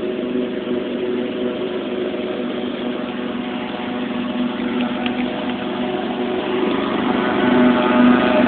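Riding lawn mower engine running steadily, growing louder near the end.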